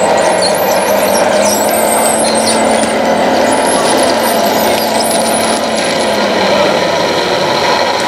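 Hydraulic pump of an RC Mercedes-Benz tipper truck whining steadily as it raises the dump body, over a constant background din. High wavering squeaks run through the first six seconds.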